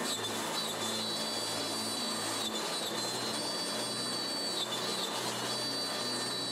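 AXYZ Woodworker CNC router's spindle running and cutting a wood sheet: a high whine that shifts in pitch every second or so over a low steady hum.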